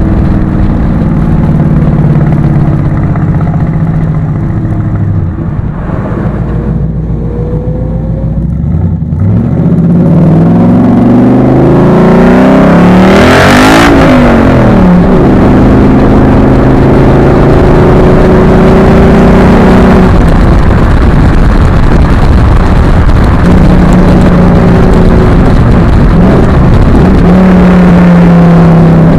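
2012 Ford Mustang Boss 302's 5.0-litre V8 heard at the side exhaust pipes, with resonators deleted and restrictor plates removed, while driving. The engine eases off, then accelerates hard to a peak about a third of the way in and settles into a steady cruise, with wind noise muffling the pipes at speed.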